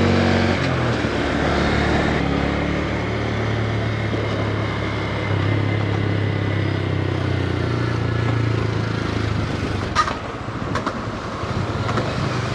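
2022 Honda Grom's single-cylinder engine running steadily at low riding speed. Its low note rises slightly about five seconds in and falls away near ten seconds, where two short sharp clicks are heard.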